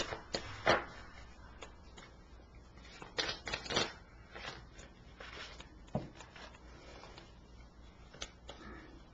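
A deck of tarot cards being shuffled and handled, a series of short papery snaps and rustles at irregular intervals, loudest a little under a second in and again around three to four seconds in.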